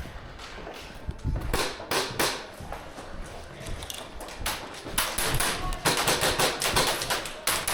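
Irregular sharp knocks and clicks, coming thick and fast about five to seven seconds in, amid the shots, hits and footsteps of an airsoft game.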